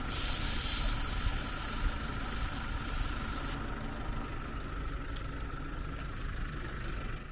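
Air hissing out of a car tyre valve as the tyre is let down to about 28 psi for a corrugated gravel road. The hiss cuts off suddenly about three and a half seconds in, leaving a low steady rumble.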